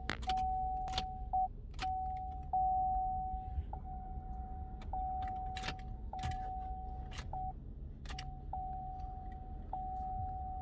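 Key being worked in the ignition of a 2012 Chevy Sonic: repeated sharp clicks and key jingling, over a steady high electronic tone that cuts in and out. No engine cranks or catches: the car will not start.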